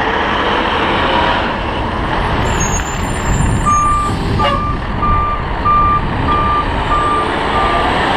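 A truck's reversing alarm beeping evenly, about one and a half beeps a second, starting about halfway through, over steady engine noise. There is one short click near the middle.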